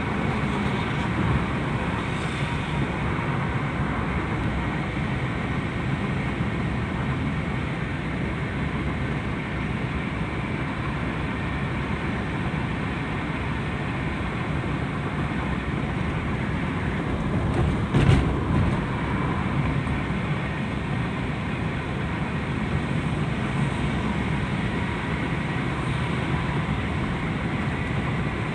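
Steady road and engine noise heard inside a car's cabin while driving along a highway, with one brief thump about eighteen seconds in.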